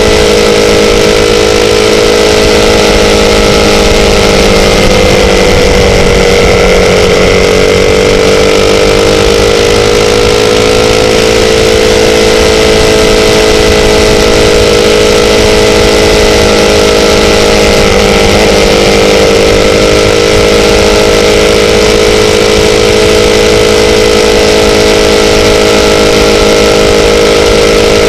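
Sport motorcycle engine running at a steady cruise over a constant rushing noise. Its note sags slightly and recovers a few seconds in, and wavers briefly about two-thirds of the way through.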